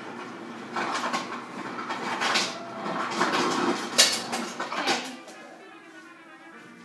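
Ice cubes being taken from a refrigerator: rattling and clattering of ice with refrigerator door and drawer handling, and a sharp knock about four seconds in.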